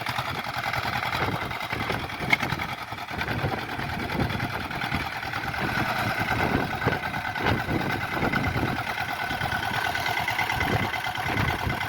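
Swaraj 855 tractor's three-cylinder diesel engine running steadily at low speed, with a fast even knock and a faint whine over it.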